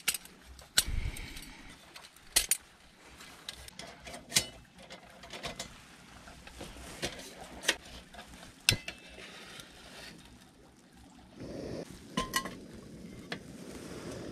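Metal clinks and clicks as an Iwatani camping gas burner, its gas canister and folding aluminium windscreen are handled and fitted together. Near the end the burner is lit, with a few quick igniter clicks and then a steady hiss of the gas flame.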